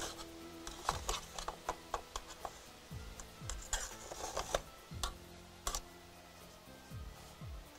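A spoon pressing and scraping graham-cracker crumbs into a metal springform pan: irregular light clicks and scrapes, with soft background music underneath.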